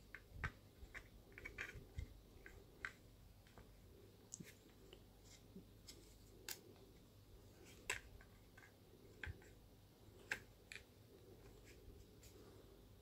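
Scattered small clicks and taps of hard plastic as a DJI Osmo Pocket handheld gimbal camera is handled and fitted into its plastic protective case, the loudest about half a second, eight seconds and ten seconds in.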